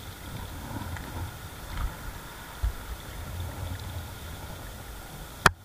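Wind rumbling on the microphone, with a couple of dull thumps and a sharp click near the end.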